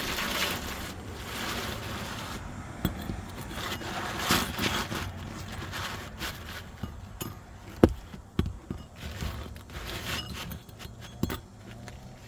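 Asphalt roof shingles scraping and rubbing as a replacement shingle is worked into place, in several separate spells, with a few sharp knocks, the loudest a little past halfway.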